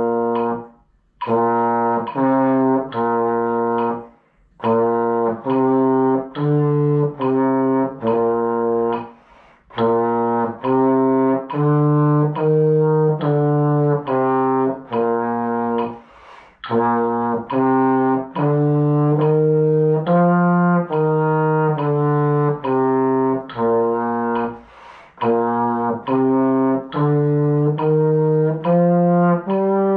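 Trombone playing a B flat scale pattern exercise (do, do-re-do, do-re-mi-re-do and so on up the scale) at a steady slow tempo, each note separate, with short breaks for breath every few seconds. The notes climb gradually higher over the passage.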